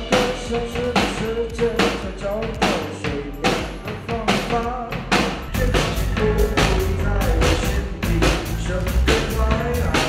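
Music with a drum kit keeping a steady beat and a melody over it; a heavier bass comes in about halfway through.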